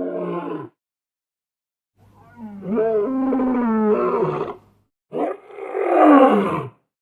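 A big cat roaring: three separate calls, a short one at the start, a long one in the middle, and a rougher one near the end, with silence between them.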